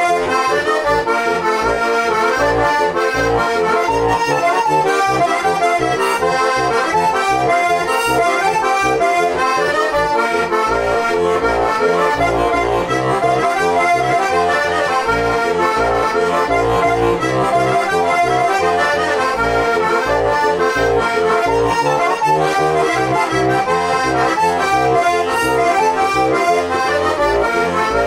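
Žúbor heligonka, a diatonic button accordion tuned in F and B-flat with four-voice brass reeds, playing a Slovak folk tune: a melody over steady, evenly pulsing bass notes.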